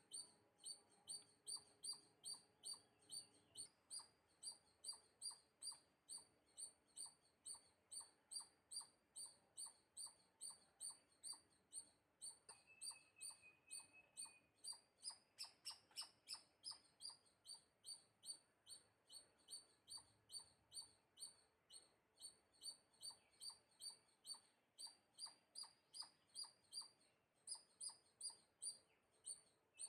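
Faint, high-pitched chirps repeated evenly about three times a second by a small animal. About halfway through, the chirps briefly rise in pitch.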